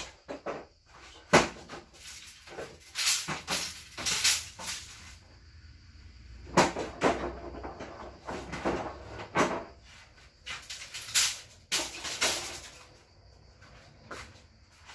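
Household items being handled and set down: a series of irregular knocks, clatters and rustles, the loudest a sharp knock about a second and a half in.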